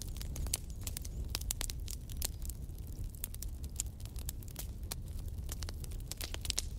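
Wood fire burning in a fireplace: the logs crackle with frequent, irregular sharp pops over a steady low rumble.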